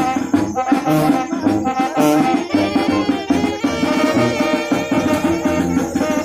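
A small brass band playing a lively tune: a sousaphone bass line, saxophone and trumpets carrying the melody, and a drum set with bass drum keeping a steady beat.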